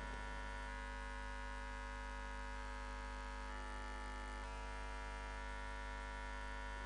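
Steady electrical mains hum and buzz in the sound system, unchanging throughout, with no other sound on top.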